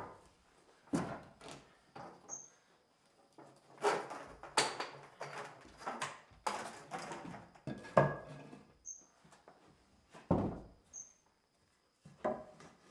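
Timber boards and offcuts knocking, sliding and scraping on a wooden plank floor as they are handled and laid out, in irregular bumps and scuffs with a few sharper knocks.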